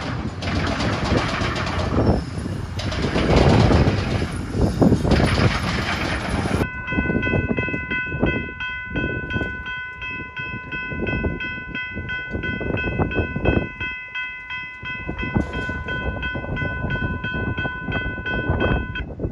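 Loud gusting wind noise on the microphone. About a third of the way in, a railroad grade-crossing bell starts ringing: a steady, evenly repeated electronic ding that stops just before the end.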